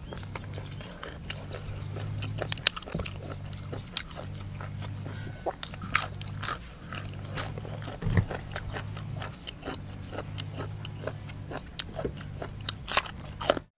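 Close-miked chewing and crunching as a person eats boiled beef shank with raw vegetables: irregular crisp crunches and wet mouth clicks, over a low hum. The sound cuts off abruptly near the end.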